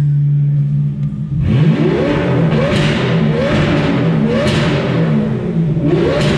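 Straight-piped 6.0-litre V12 of a BMW 760Li (E66) idling, then revved hard about a second and a half in, followed by several quick throttle blips, each a rise and fall in pitch. Very loud.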